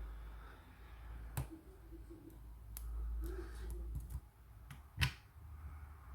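Small sharp clicks of a lock pick working the pin stack of a Scandinavian Oval cylinder lock under tension: a handful of separate clicks, the loudest about five seconds in.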